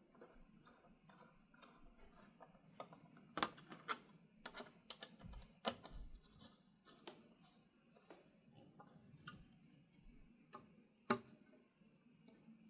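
Faint, irregular small clicks and taps of ceiling fan blades, blade irons and screws being handled, with a sharper knock about three and a half seconds in and another near eleven seconds.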